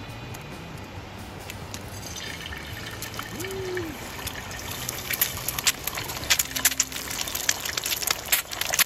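An egg frying in hot oil on a griddle pan, sizzling. The hiss sets in about two seconds in and builds to a dense, louder crackle of sharp spitting pops.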